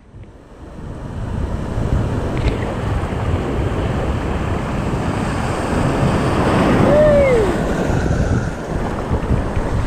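Wind buffeting the microphone over rushing water and waves around a small boat, a steady noisy rush with heavy low rumble that builds up over the first second or two. A short falling tone cuts through about seven seconds in.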